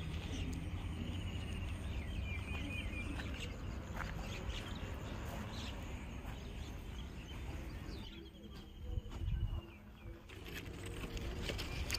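Outdoor ambience of small birds trilling twice, a couple of seconds each, over a low steady rumble.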